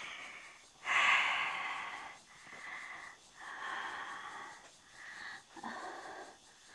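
A person breathing heavily and wheezily, with about five long, noisy breaths in a row, the loudest about a second in.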